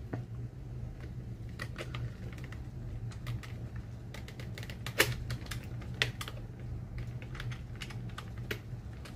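Irregular small plastic clicks and taps as the internal parts of an Adventure Force Desperado foam-dart blaster are worked by hand inside its opened plastic shell. The sharpest clicks come about five and six seconds in.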